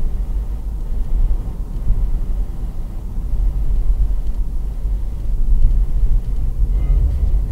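Steady low rumble of a car driving at highway speed, the road and engine noise heard from inside the cabin.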